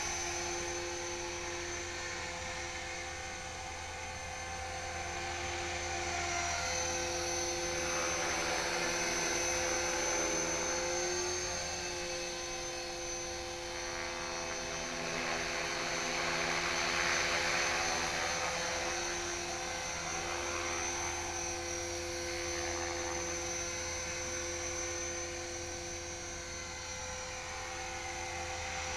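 HK-450GT electric RC helicopter in flight: a steady whine from its motor and spinning rotor, swelling and fading a little in loudness as it moves about.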